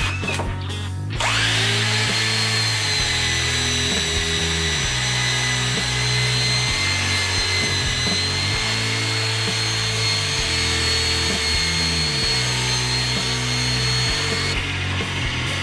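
Electric drill motor running steadily with a high whine that winds up about a second in and cuts off near the end, over background music with a repeating bass line.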